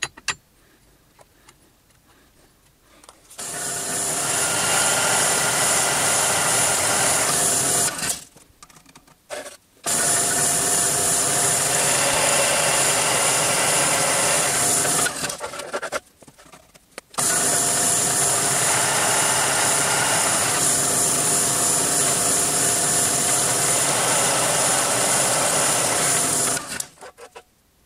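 Pillar drill running with a twist drill cutting into a small metal part: a steady motor hum with the noise of the cut, in three spells of several seconds each, starting a few seconds in.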